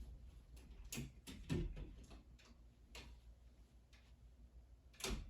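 Craftmade CXL ceiling fan coasting down with its power off: a faint low hum with scattered light ticks and clicks at uneven intervals, the loudest about a second and a half in and near the end.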